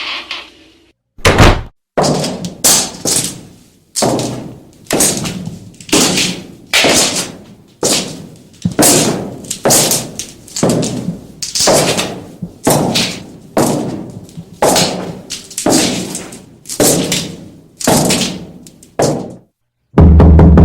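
Horror sound effect: a long run of heavy, echoing thuds, about one a second and some in quick pairs. A loud, deep boom starts right at the end.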